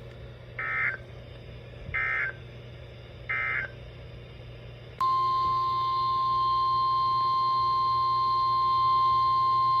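Emergency Alert System header: three short bursts of warbling SAME data tones about 1.3 seconds apart. About five seconds in, a loud steady single-pitch alarm tone near 1 kHz begins, the NOAA Weather Radio 1050 Hz warning tone that announces a new warning.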